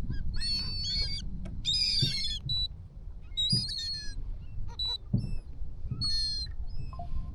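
A flock of seabirds calling over feeding fish: repeated harsh, chattering bursts and short high cries, several in a row and overlapping, over a steady low rumble.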